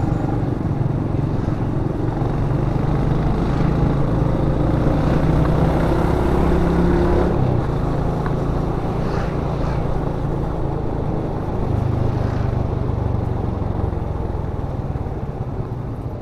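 Honda ADV150 scooter's single-cylinder engine running under way, with road and wind noise. The engine note drops about seven and a half seconds in.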